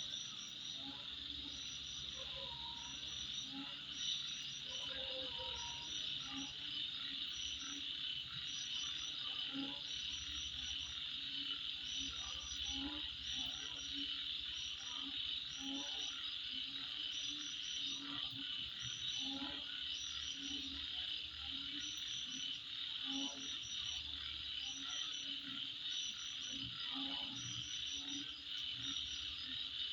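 Night insect chorus: a steady high shrill of insects, with short groups of chirps repeating above it every second or so. Low calls repeat irregularly underneath throughout.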